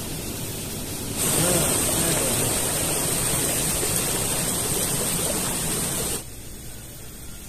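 Steady rushing hiss of water flowing along a small concrete irrigation channel. It gets louder about a second in and drops off sharply about six seconds in.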